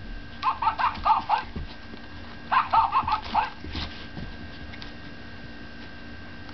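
Maltipoo puppy yapping: two quick bursts of four or five high yips each, the second burst starting about two and a half seconds in.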